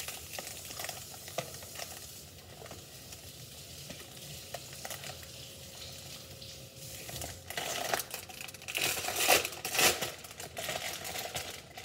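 Thin plastic packaging crinkling and rustling as it is handled and pulled at while trying to open it, with louder crackles about three-quarters of the way through.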